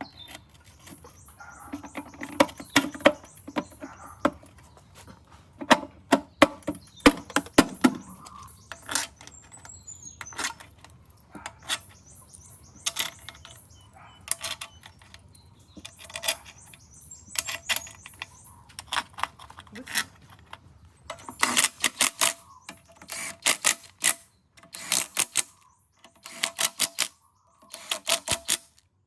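Hand tools working on metal engine parts: sharp metal clicks and clinks, some with a short ring. In the second half they turn into repeated short bursts of rapid clicking.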